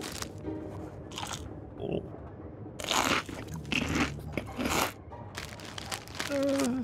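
Cartoon eating sound effect: loud crunching as a snack is tipped from a tube into the mouth and munched, in several bites over a few seconds, with a short hummed 'mm' near the end.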